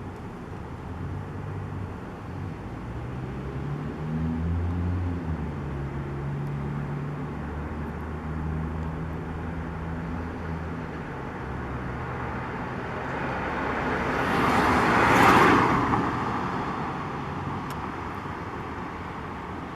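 Street traffic: a low engine hum for the first part, then a vehicle passing close, swelling to the loudest point about three-quarters of the way through and fading away.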